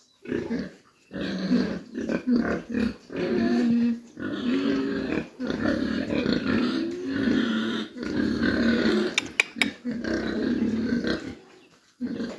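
Pigs grunting and calling almost without pause, with a few sharp knocks just after the middle.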